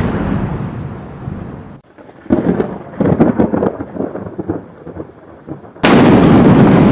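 Thunder: a rolling rumble that fades out, then crackling, uneven rumbles, then a sudden loud clap of thunder about six seconds in that keeps rolling.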